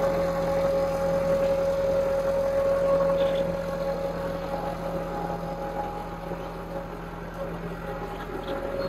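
Massey Ferguson 385 tractor's diesel engine running steadily as it pulls a digging implement through the soil, easing a little in loudness about three and a half seconds in.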